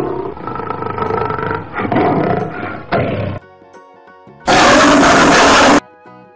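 Lion roaring in a few rough, drawn-out phrases over about the first three seconds. After a short gap there is a louder, harsh burst lasting just over a second. Light background music with sustained notes plays underneath.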